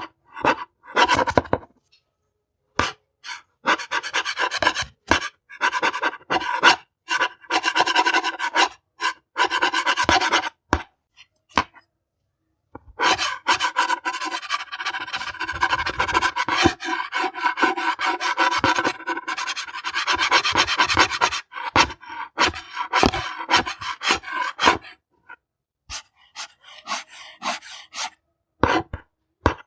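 Hand saw cutting through wood: runs of quick back-and-forth rasping strokes, broken by a few short pauses.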